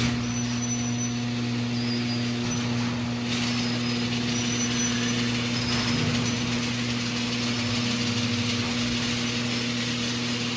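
An engine running steadily at an even speed, a constant hum with no revving.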